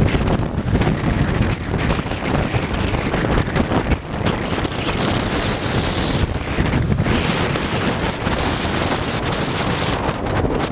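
Strong storm wind blasting across the microphone in gusts, a loud rushing that swells and dips throughout.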